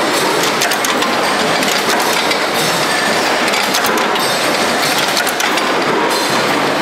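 Loud, steady clatter of a shop full of flywheel-driven mechanical punch presses stamping sheet-metal parts, with many irregular metallic clanks of the strokes over a continuous machine din.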